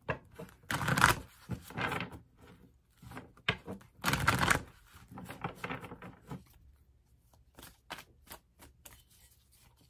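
A deck of tarot cards being shuffled by hand: a few rustling bursts of cards sliding over one another, then a run of quick, light card clicks near the end.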